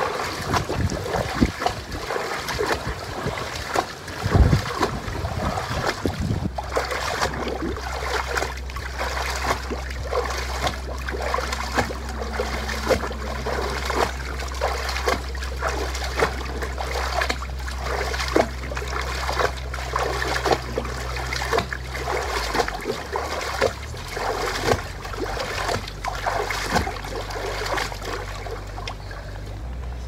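Shin-deep water in an inflatable pool splashing in a steady rhythm as legs march high through it, each step a slosh and slap of water. A low steady hum sits underneath from about six seconds in.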